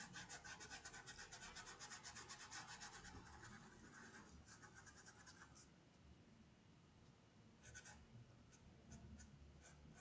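Faint scratchy strokes of a paintbrush scrubbing paint into cotton fabric, quick and rhythmic for about five seconds, then fainter, with a short flurry near the end.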